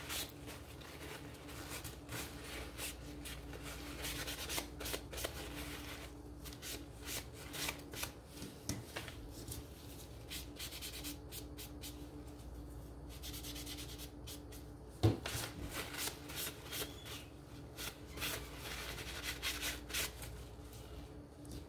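Foam brush and paper towel rubbing over thin wooden strips in short strokes as wood stain is brushed on and wiped off, with a faint steady hum underneath. A single light knock sounds about fifteen seconds in.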